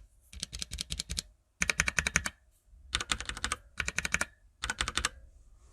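Typing on a mechanical keyboard with Gateron brown switches: five quick runs of rapid key clacks with short pauses between them.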